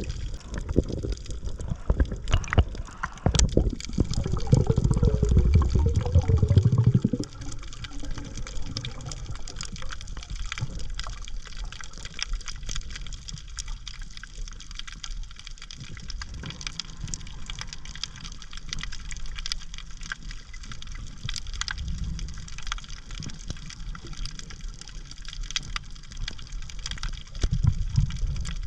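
Water moving, sloshing and gurgling, with a louder low rush of water about four seconds in that lasts a few seconds, over a constant fine crackle.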